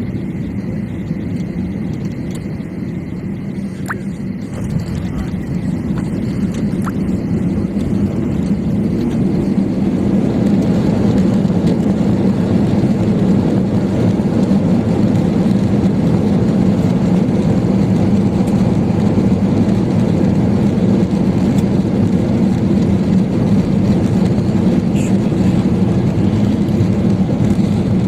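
Steady jet airliner noise as heard inside a flydubai Boeing 737 cabin, engines and airflow together, swelling louder about eight to ten seconds in and then holding level.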